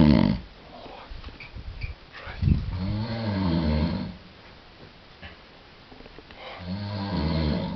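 A sleeping person snoring in slow, even breaths. One snore trails off at the start, a long one comes about two and a half seconds in, and another comes near the end, each with a low droning pitch.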